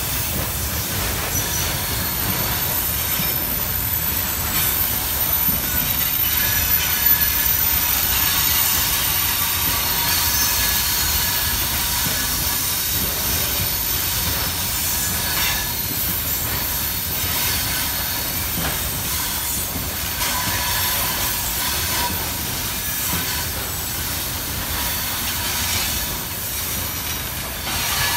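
Covered hopper wagons of a freight train rolling past close by: a steady rumble of wheels on the rails with thin, high squealing from the wheels.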